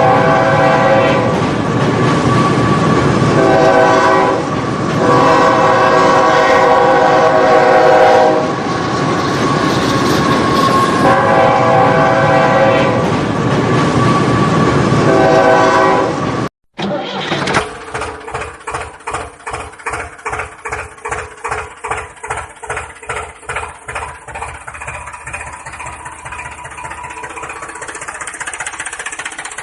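Train running past with its horn sounding in several long chord blasts over loud rumbling noise. After a sudden cut, a rhythmic clacking at about two beats a second, which fades into a steadier sound near the end.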